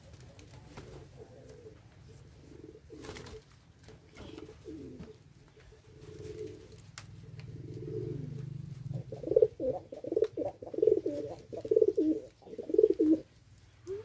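Domestic racing pigeons cooing close by: a low, rolling coo through the first part, then a run of about seven loud coos from about nine seconds in.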